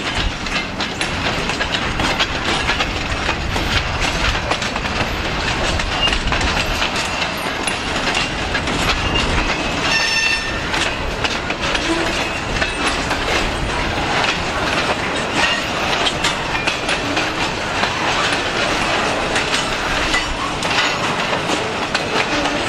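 Freight train of empty and log-loaded bulkhead flatcars rolling past: a steady rumble with rapid clicking and clanking of steel wheels over the rail joints. A brief high-pitched wheel squeal comes about ten seconds in.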